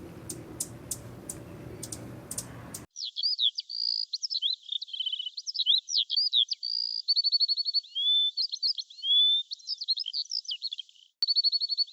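A songbird singing a varied song of quick whistles, trills and rapid repeated notes. It starts abruptly about three seconds in, after low background noise with sharp ticks.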